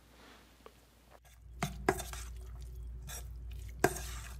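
Hands stirring flaked cooked fish in a stainless-steel bowl: soft crunching with a few light clicks and knocks against the bowl, starting about a second and a half in, the sharpest one shortly before the end.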